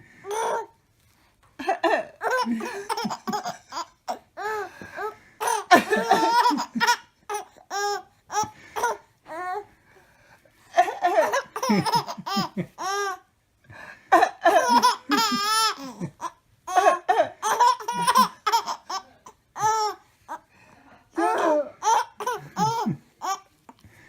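A baby laughing in a string of fits, high-pitched squeals and chuckles rising and falling, with short gaps between the bouts.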